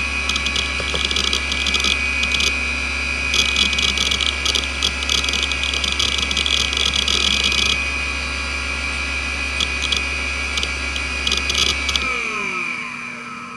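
NEC D3711 170 MB 3.5-inch hard drive running with a steady spindle whine and chattering with bursts of head-seek noise as Windows 95 boots from it. About twelve seconds in the power is cut: a low hum stops and the whine falls in pitch as the platters spin down.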